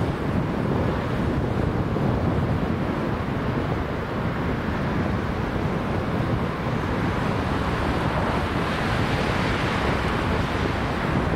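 Steady wind rumble on the microphone, mixed with road traffic; near the end a lorry with a trailer passes and a tyre hiss swells.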